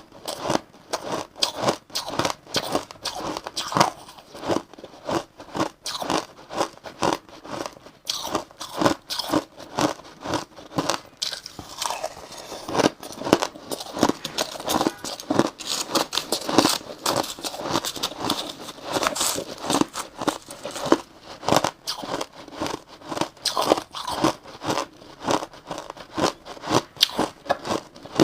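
Crushed ice crunching between a person's teeth in close, rapid bites and chews.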